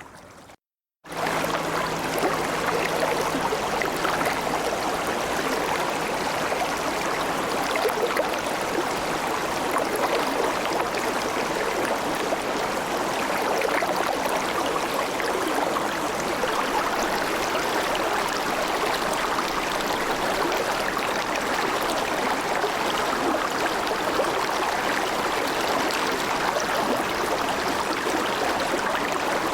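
Shallow river murmuring in a steady, even flow, cutting in after a brief silent gap about a second in.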